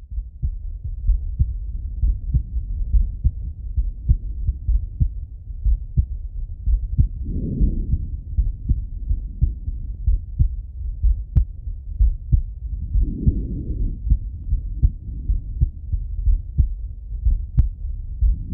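A man's heart heard through a stethoscope chest piece: a slow, steady lub-dub beating with deep thumps. Soft breath sounds swell in and out twice, about seven and thirteen seconds in.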